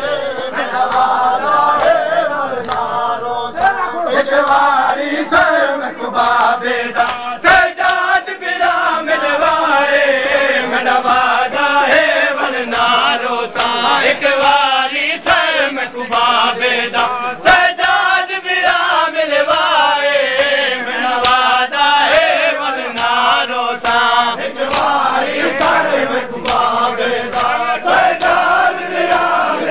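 Voices chanting a Shia noha, with sharp hand slaps of matam, chest-beating in mourning, landing roughly once a second in time with the chant.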